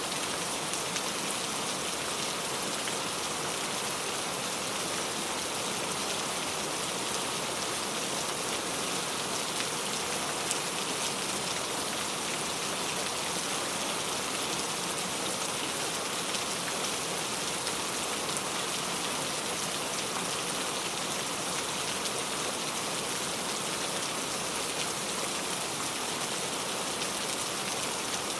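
Steady rain falling, a constant hiss of raindrops with fine patter.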